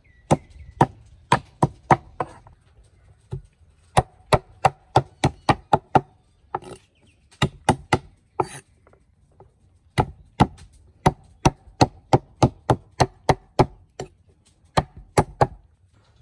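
Knife chopping on a wooden cutting board: quick runs of sharp strikes at about four a second, broken by short pauses, with a couple of brief scraping sounds between runs.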